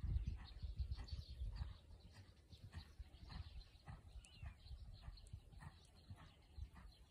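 A horse's hoofbeats on a sand arena surface, a regular run of soft strikes as it moves around the arena. A low rumble of wind on the microphone is the loudest thing in the first two seconds.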